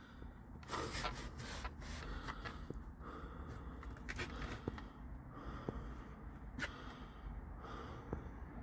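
A person breathing heavily close to the microphone, in soft repeated breaths, with a few faint clicks.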